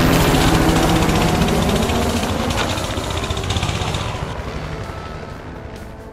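Coleman CT200U-EX mini bike's 196cc single-cylinder engine running hard under throttle, gradually fading away.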